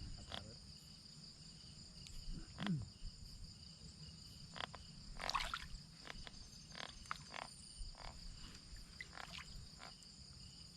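Night ambience of frogs giving short, repeated calls over a steady high insect trill, all faint. Two short, louder noises stand out, one just under three seconds in and one about five seconds in.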